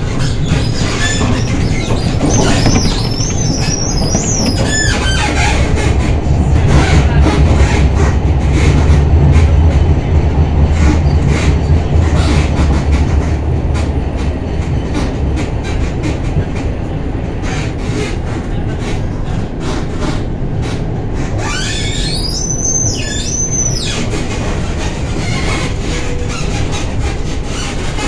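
A tram running on street rails, heard from inside the car: a steady rumble with rapid clicks that grows louder for several seconds in the middle. Twice, about three seconds in and again near the end, the wheels give high, wavering squeals on the rails.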